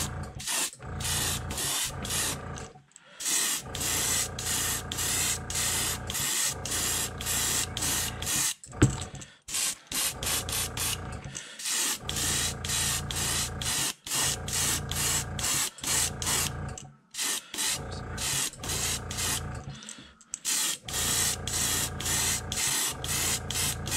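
Airbrush spraying paint in rapid short bursts of hissing air, a few a second, broken by brief pauses. A single sharp click about nine seconds in is the loudest moment.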